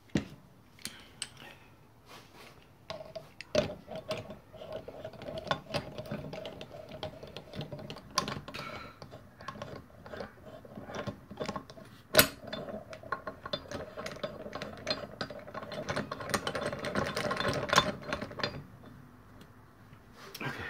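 Rapid ratchet-like clicking and metal clinks from hand-tool work on engine parts, with a couple of sharper knocks. A steady tone runs under it from about three seconds in until shortly before the end.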